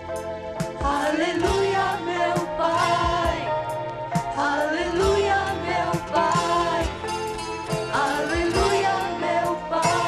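Gospel song from a vinyl LP playing a passage without lyrics: a melody line over band backing, with drums keeping a steady beat.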